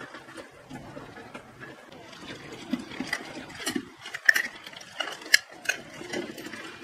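Small 12 V DC gear motors and mechanism of a DIY luggage-following robot running, with scattered sharp clicks and knocks through the middle.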